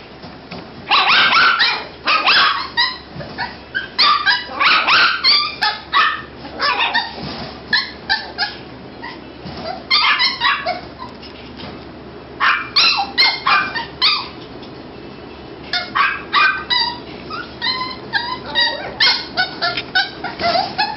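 Toy poodle puppies yapping in short, high-pitched barks that come in quick bouts of several yaps, with brief pauses between the bouts.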